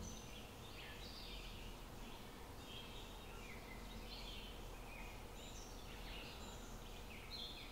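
Faint birdsong: many short chirps and whistles, some falling in pitch, over a steady outdoor hiss.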